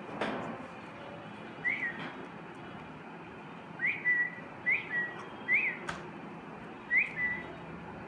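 Five short, clear whistles, each a quick rise and fall at about the same pitch, spaced a second or two apart, with a single sharp click about six seconds in.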